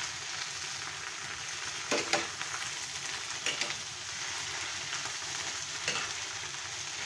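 Pechay (bok choy) sizzling steadily in a nonstick frying pan as it is stir-fried, with a spatula scraping and tossing the leaves a few times, around two, three and a half and six seconds in.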